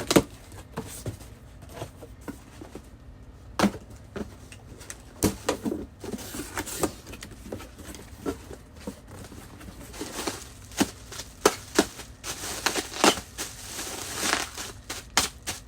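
Hands handling boxes and bottles: scattered sharp knocks and taps of things being picked up and set down, with stretches of scraping and rustling of cardboard packaging in the second half.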